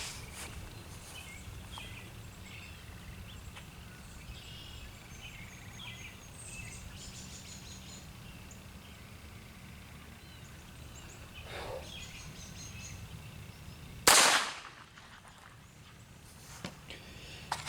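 A single revolver shot fired single action about fourteen seconds in, sharp and loud with a short ringing tail, after a stretch of birds chirping.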